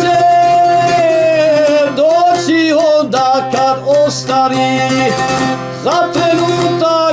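A man's voice singing a slow Bosnian devotional song with long held notes, accompanying himself on a strummed long-necked saz lute.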